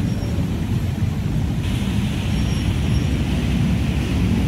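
Steady rumble of nearby road traffic, with a hissier background cutting in abruptly about a second and a half in.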